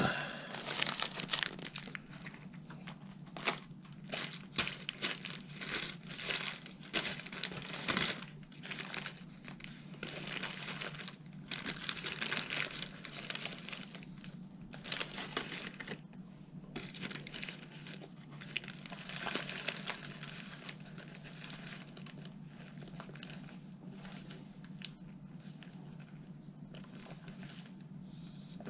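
Paper burger wrapper crinkling and rustling as a Burger King Whopper is unwrapped and handled. It is dense and busy for the first half, then thins to lighter rustles, over a steady low hum.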